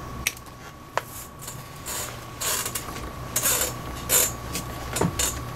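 Metal pliers and leather lace being worked on a baseball glove's web: two sharp clicks of the pliers early on, then several scratchy strokes of leather lace being pulled and rubbed against the glove leather.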